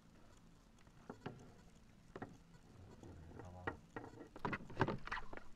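Irregular knocks and taps: a few single ones early, then a busy cluster of rattling knocks in the second half, loudest near the end, over a faint low hum.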